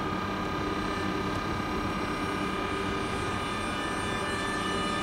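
Electric train's steady whine of several high tones, starting at once at the beginning and holding, over a low rumble.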